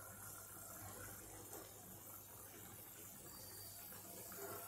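Faint, steady bubbling of a spicy gravy simmering in a lidded pan on a gas stove, the dumplings in it cooking through under the lid.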